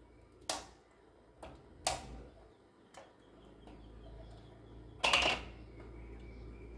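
A few sharp clicks and knocks of hard parts being handled while a computer is taken apart for cleaning, then a louder, short scraping rattle about five seconds in.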